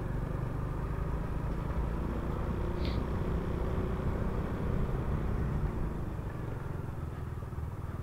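Honda Supra X125 FI's single-cylinder four-stroke engine running steadily while riding, with tyre and wind noise on the on-bike microphone.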